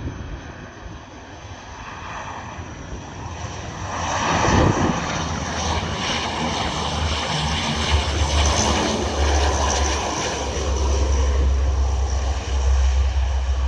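Antonov cargo aircraft's engines on arrival: the noise grows louder about four seconds in, then a deep rumble holds steady as the plane passes close.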